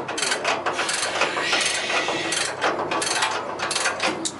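Hand ratchet wrench clicking in quick runs as a socket turns nuts on the engine.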